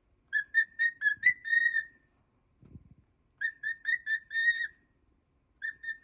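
Cockatiel whistling: two runs of quick notes on one pitch, each ending on a longer held note, with a third run starting near the end.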